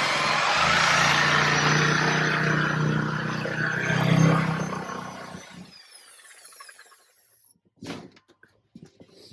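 Power tool running, then winding down and stopping about six seconds in; a single knock near the end.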